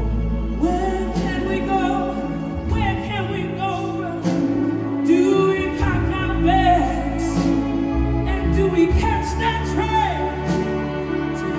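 Live soul song with a full orchestra and band: a woman sings the lead with sliding, ornamented phrases over orchestral strings, bass and drums.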